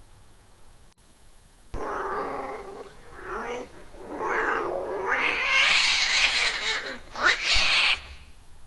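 A cat's defensive warning: pitched yowls that rise and fall, starting suddenly about two seconds in, then a long forceful hiss with a sharp spit near the end.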